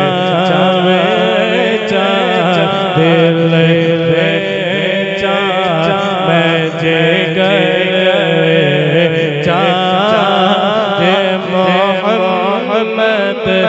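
A man's voice singing a naat, a devotional poem in praise of the Prophet Muhammad, into a microphone in a wavering, heavily ornamented melody, over a steady low drone.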